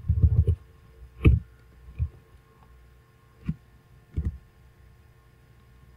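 A few isolated computer key presses and mouse clicks, four short knocks spread over several seconds, the second of them the loudest, over a faint steady electrical hum.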